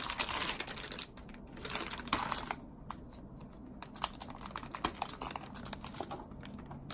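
Unboxing a computer keyboard: packaging rustling and crinkling, then a run of irregular small clicks and taps as the parts are handled.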